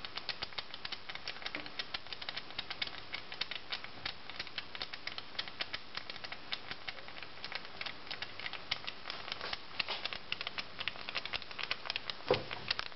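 Beer foam fizzing out of the neck of a bottle of lager that was left in the freezer: a dense, irregular crackle of tiny bubbles popping. A brief low thump near the end.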